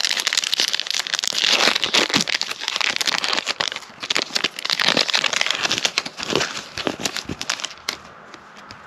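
A 2021 Panini Chronicles basketball card pack's wrapper being torn open and crinkled by hand: a dense run of crackles and rustles that stops about eight seconds in.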